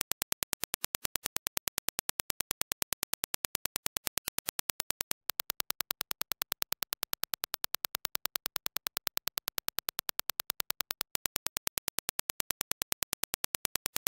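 A rapid, even train of sharp test-impulse clicks, several a second, used to show transient response. It plays first as the reference Dirac impulse, then as the Sony WH-CH720N's impulse response with weaker bass, then as the reference again, with brief breaks about five and eleven seconds in.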